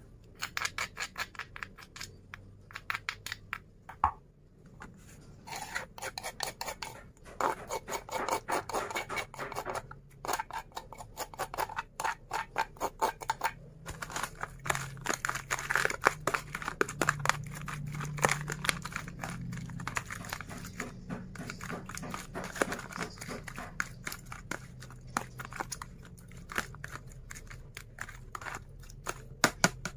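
Metal spoon scraping ground spice paste out of a shallow mortar, then scraping and clinking against a plastic tub while the paste is mixed over raw prawns, in rapid runs of short scratchy strokes.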